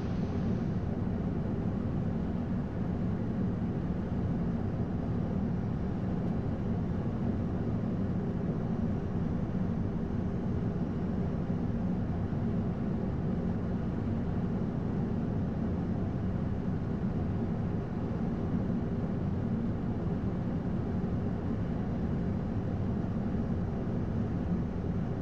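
Steady flight-deck noise of an Airbus A220-100 on final approach: an even, low rumble of airflow and engine noise with no change in level.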